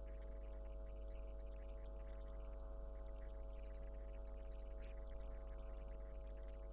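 Steady low electrical hum with a faint high whine, unchanging throughout.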